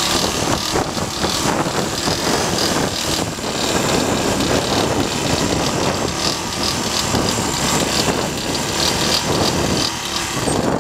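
Small single-cylinder lawn mower engine running steadily, pulling the mower along with a rider standing on it.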